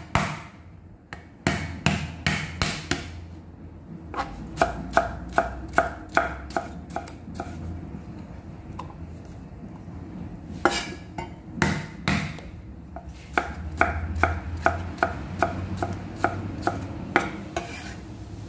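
Cleaver slicing Japanese cucumber on a thick wooden chopping block: runs of sharp knocks, about three a second, with short pauses between runs and a few single harder strikes.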